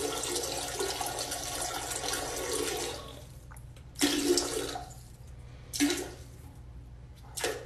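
A small dog urinating into a toilet bowl from the seat: a steady trickle splashing into the water for about three seconds, then three short spurts.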